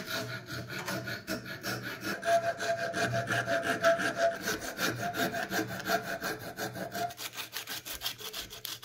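Quick, even back-and-forth rasping strokes of a hand file, and then sandpaper, over beech-wood handle scales, shaping the new wooden handle of a screwdriver.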